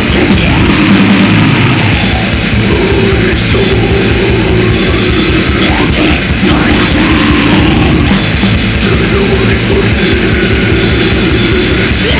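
Death metal song: a dense, loud band sound driven by rapid, even kick-drum beats. The kick drops out briefly about a second in.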